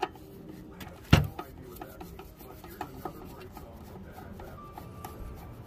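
Screws being unscrewed by hand from the back of a plasma cutter's case: a run of small clicks and scrapes of metal against metal, with one sharp knock about a second in.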